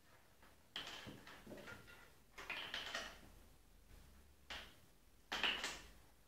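Kittens' paws and claws skittering and scraping on a bare wooden plank floor as they play: four short scuffling bursts, the last the loudest.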